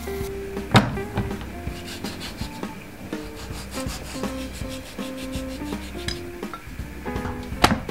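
Chef's knife sawing through raw pork belly fat on a wooden cutting board, in fast repeated scraping strokes as the thick fat is trimmed away. Two sharp knocks, one about a second in and one near the end, over background music.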